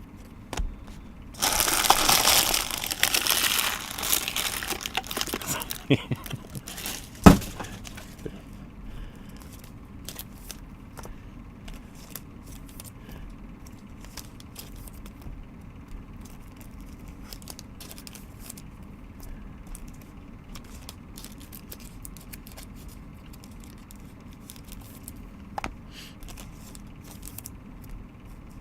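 Plastic wrapping of trading-card packs crinkling and tearing loudly for a few seconds, then two sharp knocks, followed by faint clicks of cards being handled.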